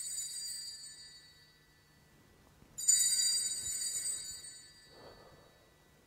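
Sanctus bell (altar bell) rung at the elevation of the consecrated host. The ring of a previous strike fades out, then a second sharp strike about three seconds in rings clearly and dies away over about two seconds.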